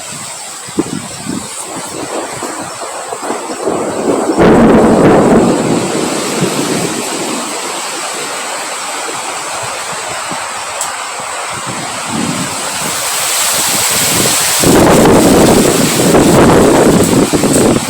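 Strong wind blowing in gusts and buffeting the microphone, with a sudden loud gust about four seconds in and another surge that builds near the end.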